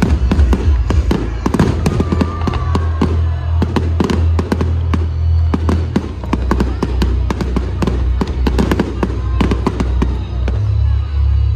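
Fireworks display: a dense, rapid string of bangs and crackles from shells bursting overhead, over loud music with a heavy bass.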